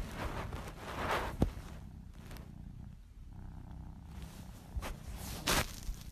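Tabby kitten purring close to the microphone, a steady pulsing low rumble. A few brief rustles and a sharp knock break in, the loudest about five and a half seconds in, as fur rubs against the phone.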